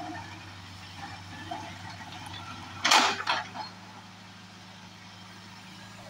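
Case backhoe loader's diesel engine running steadily at low revs while the backhoe arm works. About halfway through comes a sudden loud rush of noise lasting about half a second, the loudest sound here.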